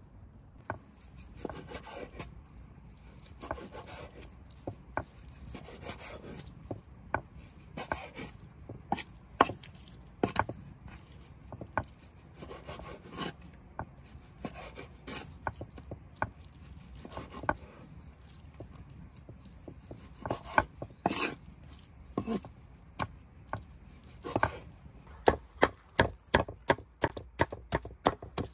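Knife cutting raw chicken breast on a wooden cutting board, with irregular knocks of the blade on the board. Near the end a cleaver chops the chicken into pieces in a quick, even run of sharp knocks, about three a second.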